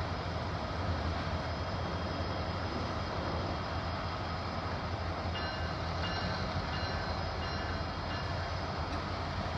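Steady low drone of a standing freight train's idling diesel locomotives. A few faint, short high beeps come about halfway through.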